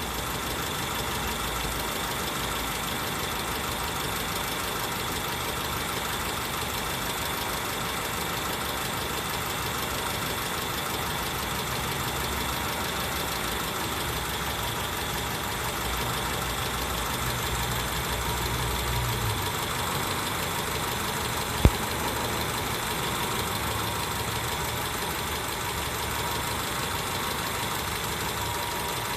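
Car engine idling steadily, with the electric radiator fan not yet switched on. One sharp click partway through.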